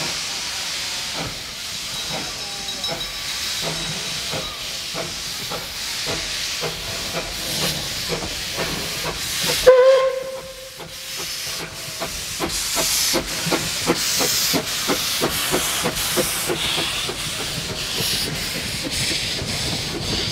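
Narrow-gauge NA class steam tank locomotive rolling slowly past, with a steady hiss of venting steam and a regular clicking as the train moves. About halfway through comes a short, loud whistle toot.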